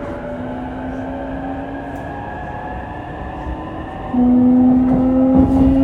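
Onboard running noise of a JR East E233-3000 series electric train under way, with the traction motors' whine slowly rising in pitch over the rumble of the wheels on the rails. About four seconds in, the sound suddenly gets louder, with a strong steady low hum added.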